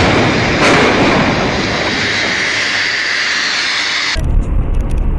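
Crane tipping over and crashing down: a loud, rough rushing noise with two louder surges near the start. About four seconds in it cuts to the low steady rumble of a car on the road.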